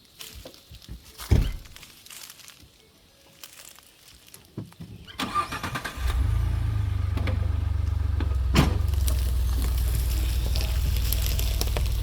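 A thump about a second in, then a vehicle engine cranked over and catching about six seconds in, settling into a steady low idle.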